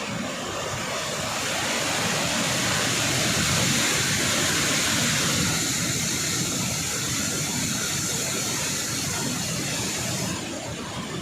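Water rushing out through the open gates of a dam spillway: a steady, loud rush of noise that swells for a few seconds, with its high hiss falling away near the end.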